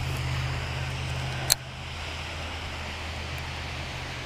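Wind noise over a steady low hum, with a sharp click about a second and a half in from a baitcasting reel during a cast.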